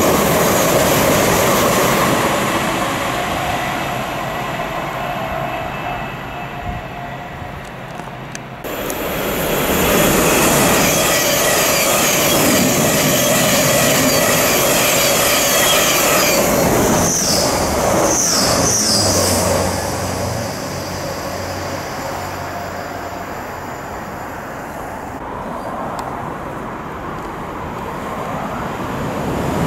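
Electric multiple-unit trains on the main line. Early on a train runs with a steady hum that slowly fades; then, about a third of the way in, a Thameslink Class 700 passes at speed with a loud steady rush of wheels on rail and a few short high wheel squeals past the halfway point. The noise then dies down before building again near the end as the next train comes in.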